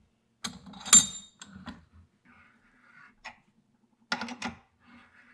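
Metal clinks and rattles of a hand reamer and tools being worked into a new kingpin bushing of an early Ford spindle, with one sharp ringing clink about a second in and a quick run of clicks near the end.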